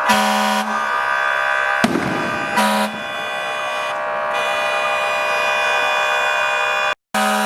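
Many car horns honking at once, held and overlapping in a continuous chord, with one lower-pitched horn giving two short extra blasts. A single sharp bang comes about two seconds in, and the sound drops out for a split second near the end.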